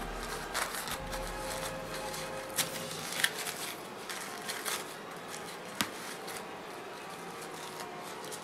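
Quiet rustling and crinkling of a thin paper napkin being handled and torn by hand, with a few short soft clicks over a steady background hiss.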